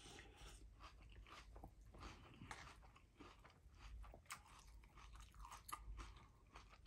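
Faint crunchy chewing of Fruity Pebbles cereal, a quick irregular series of small crunches.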